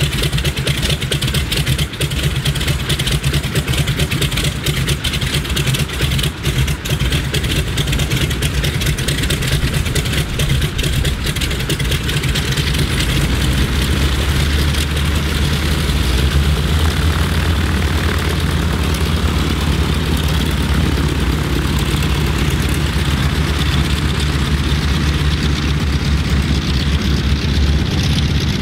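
A Ford Tri-Motor's three radial engines running at low power, a steady low drone. About halfway through the power comes up and the plane swings round to taxi away.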